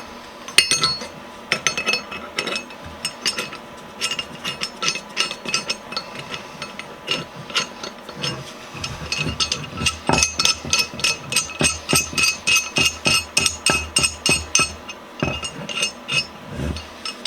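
Steel pipe wrench parts clicking and clinking as the wrench is handled and worked. The metallic ticks ring briefly and come as a rapid run, about three or four a second, in the second half.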